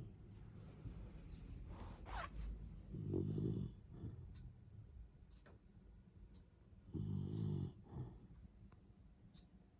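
Senior Shetland sheepdog snoring: two snores about four seconds apart, with a faint rising whistle of breath about two seconds in. The owner takes such snoring in a dog that normally breathes through its nose as a warning sign of laboured breathing.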